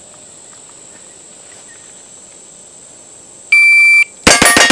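Electronic shot timer's start beep, held about half a second, then a quarter-second later a rapid string of shots from a 9mm 2011 pistol, about seven a second, running on past the end.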